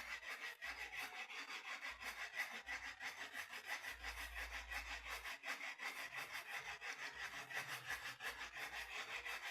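Faint, rapid scratchy rubbing of a lepet's leaf wrapping and bamboo tying strips being handled.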